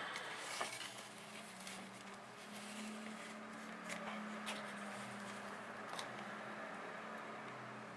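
Light handling sounds of plastic containers on a metal tabletop: a seedling cup and a plastic tray picked up, shifted and set down, giving a few soft clicks and taps. A low steady hum runs underneath.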